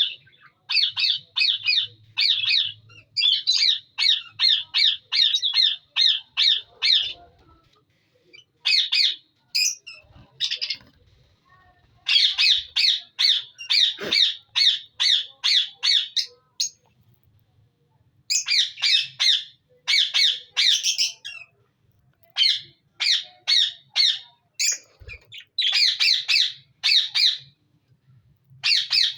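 Budgerigars in a breeding colony squawking: short, harsh calls repeated about three or four a second, in bouts of a few seconds with brief pauses between.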